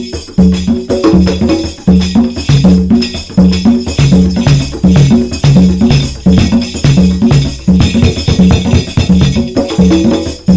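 Instrumental music on a hand-played instrument: a fast, repeating pattern of short, low notes, each sharply struck, over a strong bass, keeping a steady beat.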